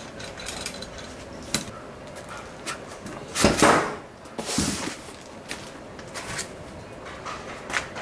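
Handling noise as a metal mounting bracket is taken off a cylindrical router node and a cardboard shipping pad is pulled free: scattered clicks and knocks of metal and cardboard on a wooden table. There is a louder scrape and rustle about three and a half seconds in, and a second one a second later.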